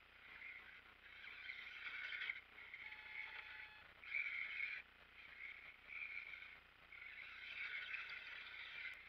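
ECX Barrage 1/24-scale electric RC crawler's motor and gears whining in repeated bursts of one to two seconds, starting and stopping abruptly as the throttle is blipped while it climbs through loose dirt.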